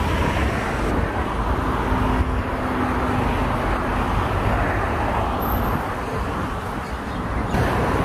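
Steady wash of road traffic noise, a continuous rumble without separate events, with a faint steady hum for a couple of seconds early on.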